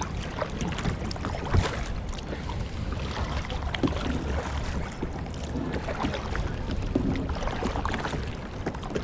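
Kayak paddle strokes splashing and dripping in the water, with wind rumbling on the microphone.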